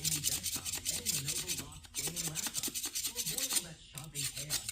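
A hand gasket scraper rasping in quick, rapid strokes over the dozer's clutch-housing mating surface, taking off leftover plastic gasket material. The strokes pause briefly about two seconds in and again shortly before the end.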